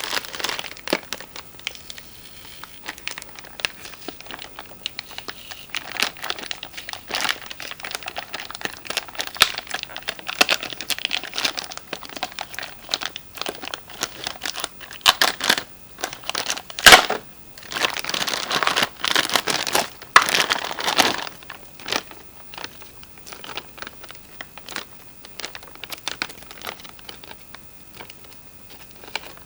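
Toy packaging being handled and unwrapped: irregular crinkling and rustling with scattered sharp clicks and taps. The loudest click comes about 17 seconds in, followed by a few seconds of denser crinkling.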